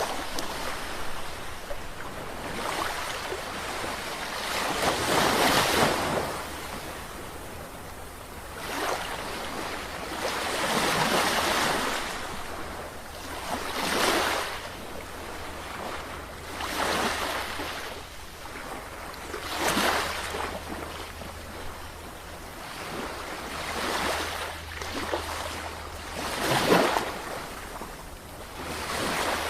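Sea waves breaking and washing ashore, the surf swelling and fading every few seconds, with a steady low rumble underneath.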